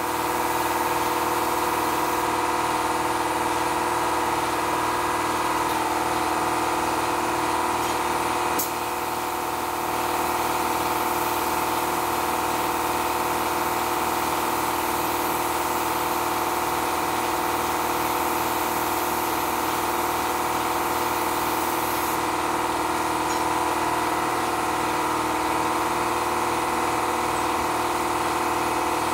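29-gallon electric air compressor running steadily, with the air hiss of a SprayIt LVLP spray gun spraying paint that stops about twenty-two seconds in.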